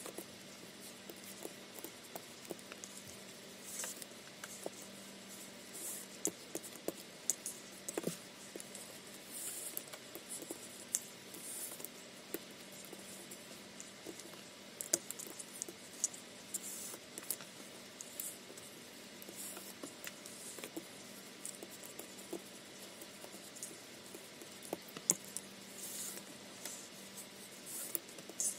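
Macramé cord being handled, threaded through loops and pulled tight into knots: soft irregular rustling and scraping with many small sharp ticks and taps, over a faint steady hum.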